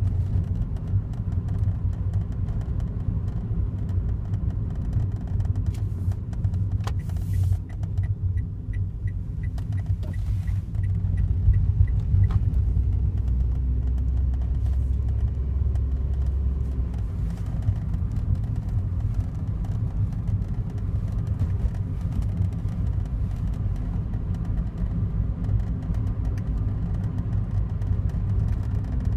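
Daihatsu Wake kei car running: a steady low rumble. For a few seconds about a quarter of the way in, a faint run of quick, even ticks, about four a second, rides over it, and a deeper hum swells briefly after that.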